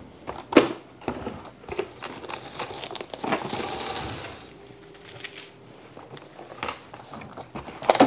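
Plastic cling wrap being pulled from its box and crinkled as it is spread over a metal baking sheet, with a sharp knock about half a second in.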